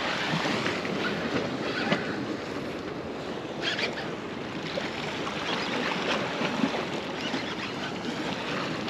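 Steady rush of waves and current at an ocean inlet, with wind buffeting the microphone and a few brief scratchy sounds.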